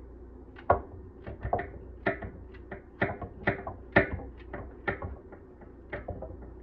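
A raw carrot being cut by hand with a small serrated knife, chunks dropping into a pan: a run of irregular crisp snaps and light knocks. The sharpest comes just under a second in and another around four seconds.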